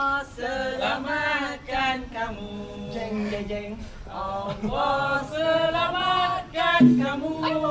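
A group of people singing together without instruments, a slow chant-like melody with long held, gliding notes.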